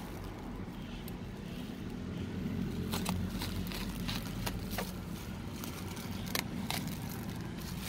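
Small scissors snipping into fibreglass chopped strand mat: a handful of short, sharp snips from about three seconds in, with the mat crackling as it is handled. A steady low rumble runs underneath.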